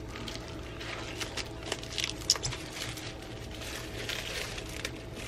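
Plastic wrapping on a replica championship belt crinkling and rustling in irregular small spurts and clicks while the belt is handled.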